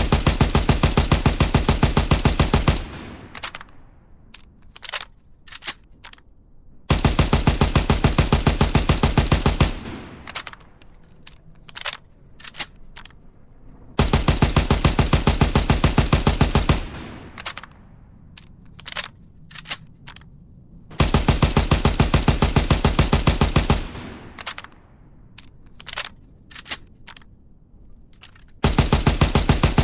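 FG42 automatic rifle firing long full-auto bursts of rapid, evenly spaced shots, each about three seconds long, four times with a fifth starting near the end. Between the bursts come a few sharp metallic clicks and clacks of the rifle being reloaded.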